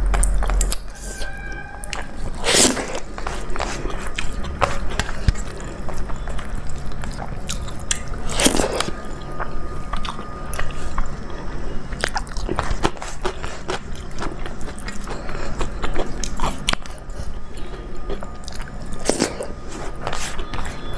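Close-miked mouth sounds of a person eating a dal-rice thali: steady chewing with wet smacking clicks, and a few louder bites about 3, 9 and 19 seconds in.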